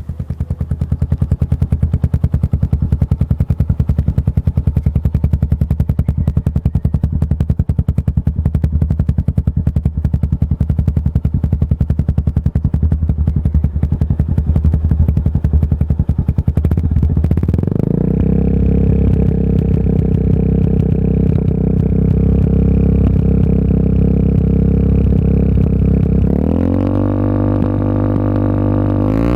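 Suzuki Gixxer 150's single-cylinder four-stroke engine running through an aftermarket Akrapovic exhaust. It idles with a distinct pulsing beat, steps up to a steady higher rev a little past halfway, and is revved higher near the end.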